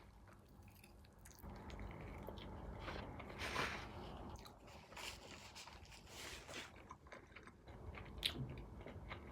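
Close-up chewing of a fried chicken wing coated in hot sauce, with soft irregular bites and crunches, two of them a little louder about three and a half and six and a half seconds in.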